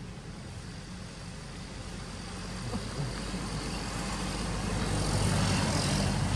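Low, steady engine drone that grows louder over the first few seconds, then holds steady.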